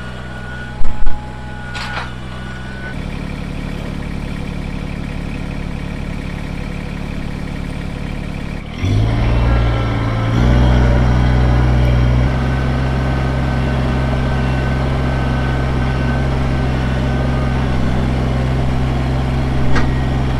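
Kubota BX23S compact tractor's three-cylinder diesel engine running steadily as the loader works, with two brief loud knocks about a second in. The engine gets louder about three seconds in, and louder and heavier again near nine seconds.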